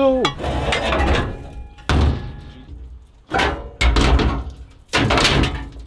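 Four heavy metal clunks as shock absorbers and scrap are knocked about against a steel dumpster.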